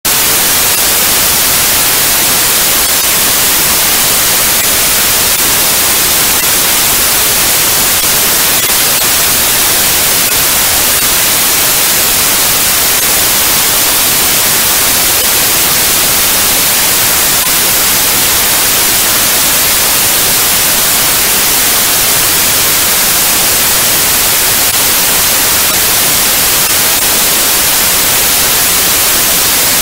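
Synthesized white noise: a loud, steady hiss with no tones or changes, brightest in the highs.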